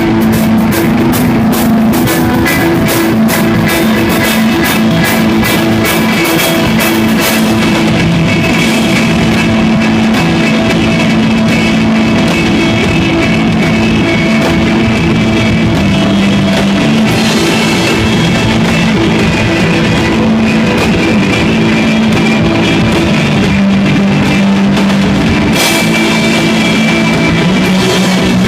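Live instrumental desert rock from an electric guitar, bass guitar and drum kit, playing loudly, with a fast run of drum and cymbal strikes over roughly the first seven seconds.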